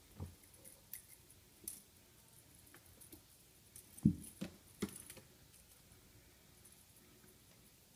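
Bengal kittens pouncing and scrambling at a wand toy on a tile floor: scattered light taps and scuffs, with a few thumps about four to five seconds in, the first of them the loudest.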